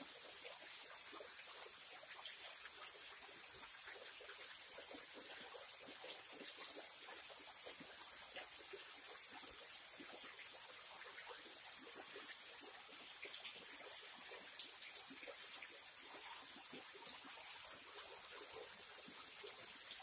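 Small waterfall, thin streams of water falling over a rock ledge into a shallow pool: steady trickling and splashing, with a few sharper drips standing out, the loudest about midway.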